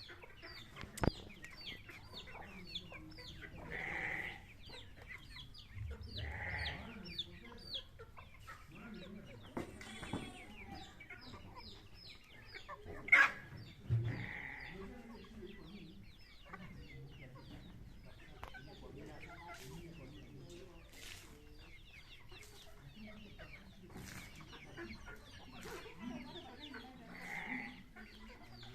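Chickens clucking and calling, with many quick high cheeps running on throughout and a few louder calls. There is a sharp knock about a second in and a louder one about halfway through.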